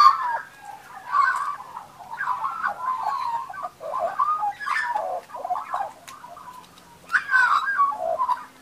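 Australian magpies calling: a continuous run of short notes that bend up and down, one after another without a break. About four seconds in there is a brief splash and wing flutter as one bird flaps up off the water tub.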